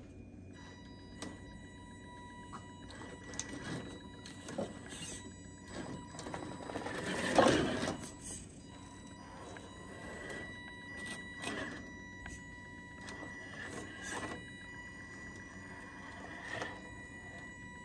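Small electric RC rock crawler, the Carisma SCA-1E Ford F-150, creeping over stones. Its electric drive gives a steady high whine, and its tyres and chassis click and knock on the rock, with a louder scrape a little past the middle.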